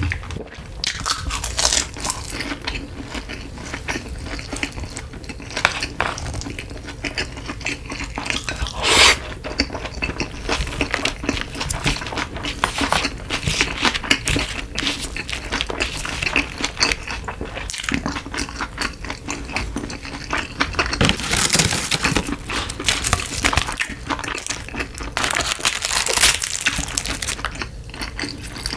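Close-miked eating sounds: chewing mouthfuls of rice and side dishes, with a spoon and chopsticks clicking against a plastic lunch-box tray. There are louder rustling bursts a few times, with seasoned laver sheets crinkling toward the end.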